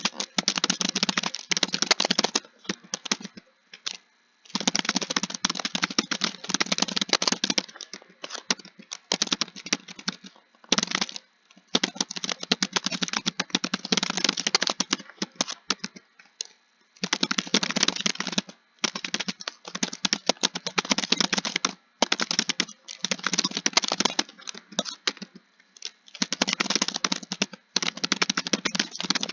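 Fast typing on a computer keyboard: dense runs of key clicks a few seconds long, broken by short pauses.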